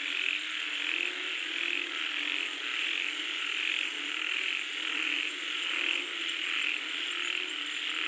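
A chorus of frogs calling at night, many voices overlapping, with croaks pulsing regularly, about every half second, over a steady hiss.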